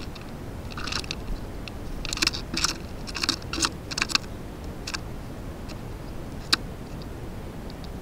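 Irregular sharp taps and clicks of birds pecking at seed on a snow-covered concrete birdbath, in quick clusters through the first half and a single sharper tap later.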